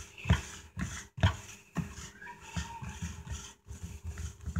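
Fork stirring potato salad around a plastic mixing bowl: a run of soft knocks and scrapes, about two a second at first, then quicker and lighter.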